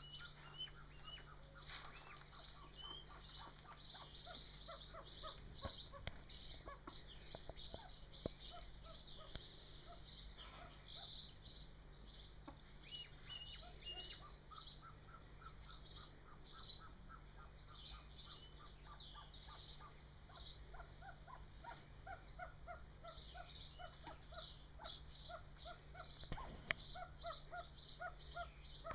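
Golden pheasant chicks peeping: a busy stream of short high chirps with runs of lower, evenly repeated calls, and a single sharp click near the end.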